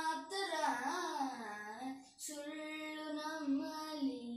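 A young boy singing solo without accompaniment, holding long notes. The melody wavers up and down about a second in, and a short break for breath comes just after two seconds before the next long held note.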